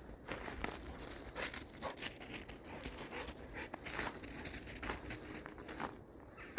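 Footsteps crunching in frozen, crusted snow: a run of irregular crisp crunches.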